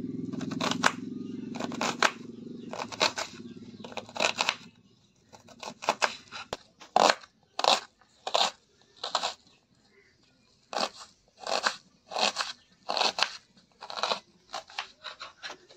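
A kitchen knife slicing through a red onion and tapping the chopping board, about twenty crisp cuts at one or two a second, with a short pause midway and a quick run of cuts near the end.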